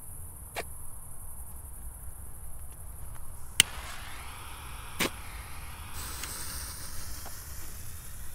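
Small category 1 consumer fireworks going off: a few sharp pops over a steady hiss, the loudest about three and a half seconds in and another about five seconds in.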